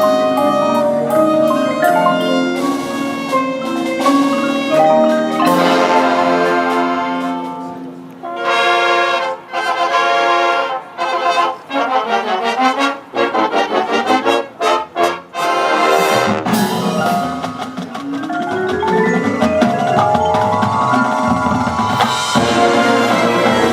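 High school marching band playing its competition show, brass with mallet percussion. Held chords give way to a passage of short, separated hits, then a rising line builds into a full, loud chord near the end.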